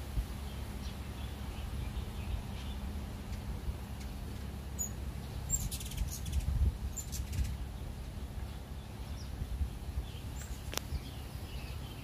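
Hummingbirds at feeders giving a cluster of high, sharp chip notes about five to seven seconds in, with fainter bird chirps scattered throughout over a steady low rumble.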